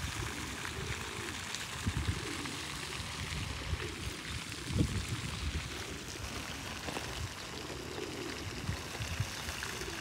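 Steady splashing of a pond's spray fountain, a continuous hiss of falling water, with a few low rumbling thuds over it.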